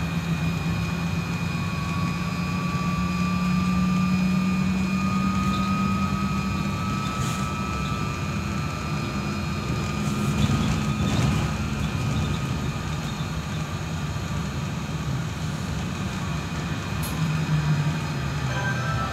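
Inside a moving Solaris Trolino 12 electric trolleybus: the electric drive gives a thin whine that rises slowly in pitch over the first several seconds as the bus gathers speed, then holds steady. Beneath it run a steady low hum and road noise.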